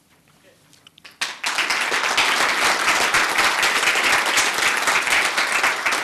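Audience applauding, a dense round of clapping that starts suddenly about a second in after a brief hush.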